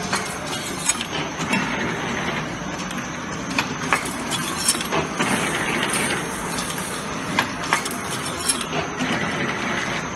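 CNC galvanized wire hanger making machine running: a steady mechanical clatter with frequent sharp, irregular clicks and clinks.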